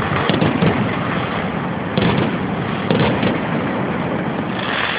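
Aerial fireworks bursting overhead: a dense, continuous crackle and rumble of exploding shells, with sharper bangs about two and three seconds in.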